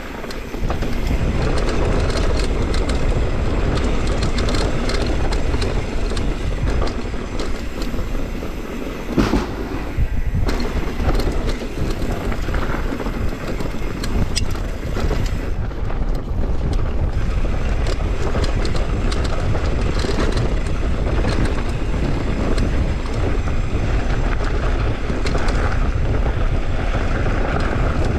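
Mountain bike riding fast down a dirt jump trail, heard from a camera on the bike: tyres on packed dirt and gravel, wind on the microphone, and a constant rattle of chain and frame, with a sharp knock about nine seconds in.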